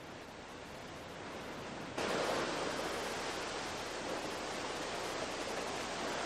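Sea surf washing against a rocky shore: a steady rushing noise that starts abruptly about two seconds in, after a fainter hiss.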